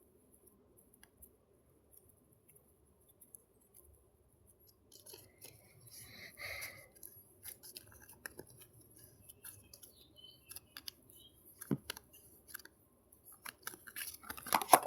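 Clay-and-lotion slime being stirred: faint sticky squishing and clicking that starts about five seconds in and grows busier, with sharper clicks near the end.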